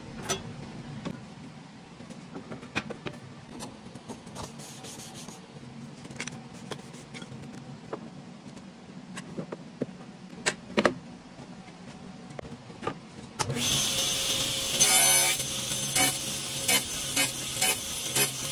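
Wooden jig parts and a metal stop block being handled and set on a table saw, with scattered knocks and clicks. About two-thirds of the way in the table saw starts and runs, then cuts small wooden blocks one after another in quick repeated strokes.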